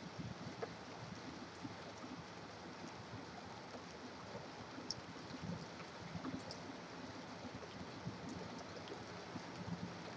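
Steady rain, with scattered drip ticks, over the low, steady noise of highway traffic.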